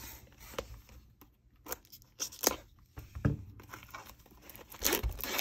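Plastic shrink wrap on a trading card box being slit and peeled off, crinkling and tearing in short irregular crackles that come thickest near the end.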